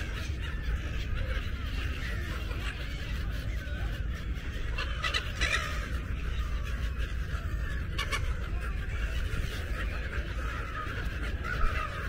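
A large flock of seagulls calling, many squealing calls overlapping continuously, over a steady low rumble.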